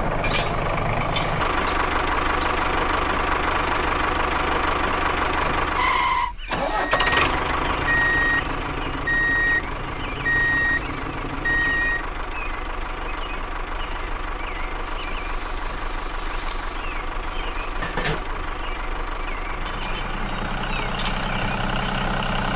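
Tractor engine running steadily, with a row of reversing beeps about once a second between roughly 8 and 12 seconds in as the trailer backs up.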